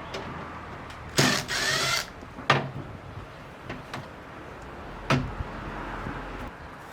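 A cordless power drill/driver runs briefly about a second in, its whine rising in pitch as it spins up. Scattered clicks and knocks of tools and parts being handled come before and after it.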